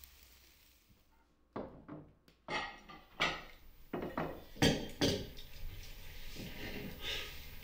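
Dishes and cutlery clinking at a dinner table as food is served from a glass bowl onto plates: a run of sharp clinks and knocks starting about a second and a half in, easing into quieter clatter.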